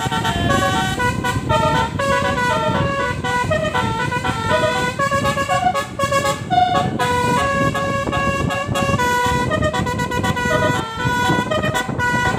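Basuri V3 telolet multi-tone bus horn playing a fast melody of stepped, changing notes, over a steady low rumble.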